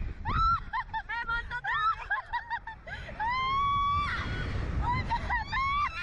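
Young women riders screaming and shrieking with laughter while being flung on a slingshot thrill ride: a quick run of short high shrieks, one long held scream about three seconds in, then more short shrieks near the end, over a low rumble.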